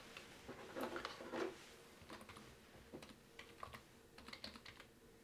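Computer keyboard being typed on: faint, irregular runs of keystrokes as an IP address is entered.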